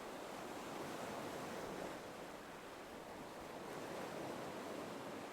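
Gentle ocean waves, a faint, soft wash of surf that swells and eases twice.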